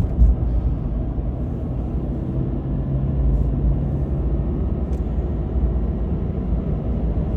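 Steady low road and engine rumble inside a car's cabin while driving, with a faint steady hum rising for a couple of seconds partway through.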